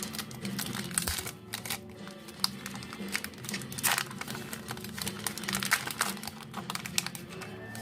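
Plastic trading-card booster pack wrapper crinkling and crackling as it is handled and opened, many sharp irregular crackles, over background music.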